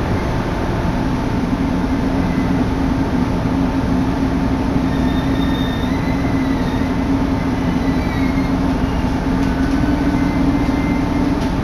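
Diesel railcar running along the track, heard from inside: a steady loud rumble and drone, with wind blowing across the microphone through an open window. Faint high wheel squeals come in briefly now and then.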